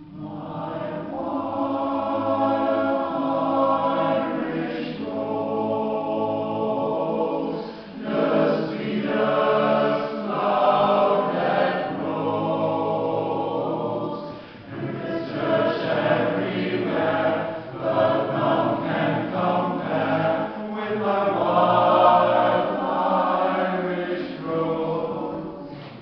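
Mixed choir of men and women singing in harmony, phrase by phrase with short breaks, starting right at the conductor's cue and ending near the close.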